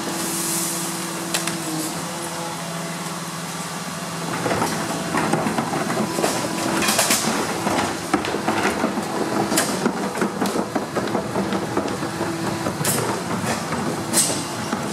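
Rear-loading garbage truck's engine and hydraulics running with a steady hum. From about four seconds in, the rear compactor mechanism works with a rough clattering sound, broken by several sharp metal clanks.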